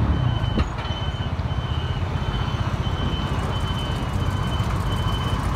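Semi-truck's diesel engine running with a deep, rapid rumble and a steady high whine above it.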